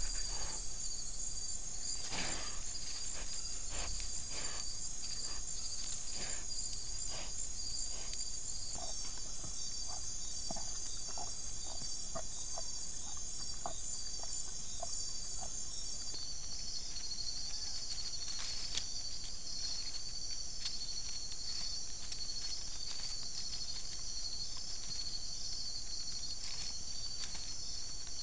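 Steady high-pitched night chorus of crickets and other insects trilling, with scattered light rustles and ticks of animals moving through dry leaf litter.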